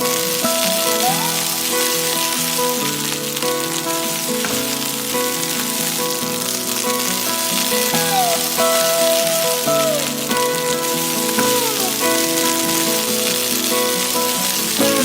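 Oil sizzling steadily as miniature french fries fry in a tiny pan, under background music with held, sliding notes.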